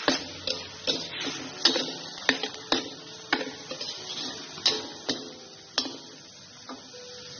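Metal spatula scraping and clacking against a stainless steel wok as crumbled tofu, ground chicken and green onion are stir-fried, over a steady sizzle. The strikes come irregularly, one or two a second, and stop near the end.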